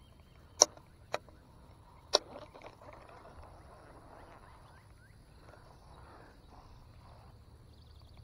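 Three sharp clicks within the first couple of seconds from a baitcasting reel and rod being handled during a retrieve, followed by faint soft rustling as the bait is twitched and reeled in.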